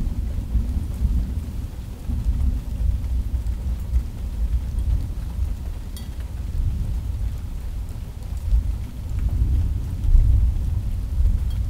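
Thunderstorm: a long, low, rolling rumble of thunder that swells about ten seconds in, over a faint hiss of rain.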